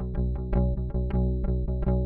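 Squier Vintage Modified Jaguar Bass played fingerstyle through its neck Precision-style pickup alone: a quick, even run of plucked notes, about six a second.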